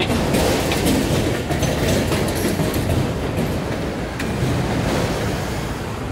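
Freight train of multilevel autorack cars rolling past close by: a steady rumble of steel wheels on rail, with quick clicks as the wheels cross rail joints.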